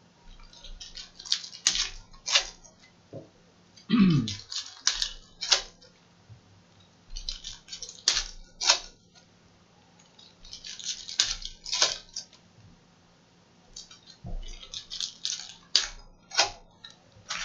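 Foil trading-card pack wrappers crinkling and tearing as packs are opened by hand, mixed with cards being handled, in about five bursts of crisp rustling.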